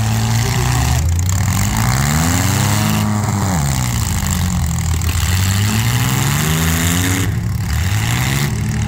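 Compact demolition derby cars' engines running hard, one revving up and falling back twice over a steady mix of engine noise.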